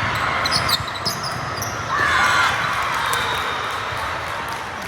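Volleyball being played in a gym hall: ball contacts and sneaker squeaks on the court over a steady hubbub, with a loud falling call or shout about two seconds in.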